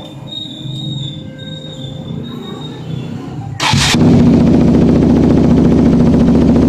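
KTM RC 200's single-cylinder engine starting: after a few seconds of faint hum with a thin high whine, it fires up with a sudden loud burst about three and a half seconds in, then runs steadily and loudly.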